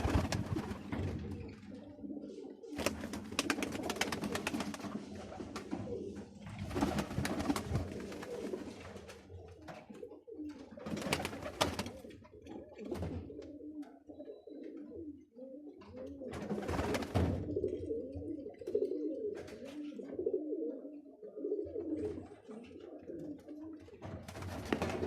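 Many roller pigeons cooing together in a loft, a continuous low warbling chorus, with a few louder rustling bursts mixed in.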